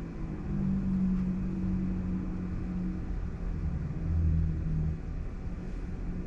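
Low, steady rumble and hum inside the cabin of a Waymo robotaxi, with the deeper hum swelling briefly a little past the middle.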